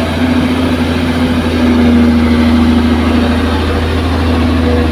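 Diesel engines of an excavator and dump trucks running steadily, a constant low drone with a held engine note that grows a little louder about two seconds in.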